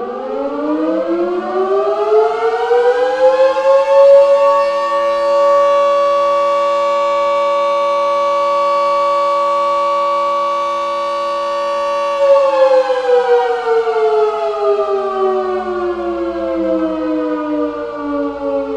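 Red Arrow outdoor warning siren winding up: its pitch rises for about four seconds, holds steady, then begins winding down about twelve seconds in.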